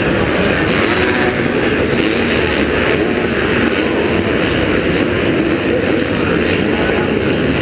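Many supercross dirt-bike engines running together in a loud, steady din, echoing through a covered stadium.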